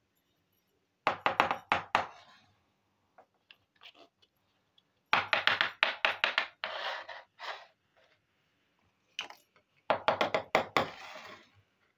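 Small hard plastic toy kitchen pieces clicking and clattering as they are set down on a board, in three short bursts of quick taps.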